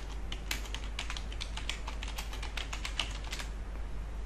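Typing on a computer keyboard: a quick, irregular run of key clicks that stops about three and a half seconds in, over a low steady hum.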